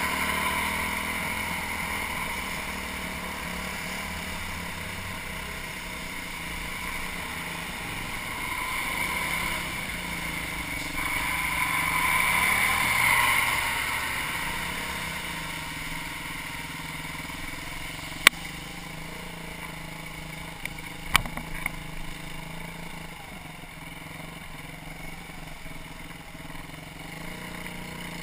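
BM Motard 200 single-cylinder four-stroke motorcycle engine running, its note swelling twice in the first half. Several sharp clicks come in the second half. The engine has an intermittent ticking of unknown cause, with uneven revs and flat spots, after suspect fuel and riding through puddles.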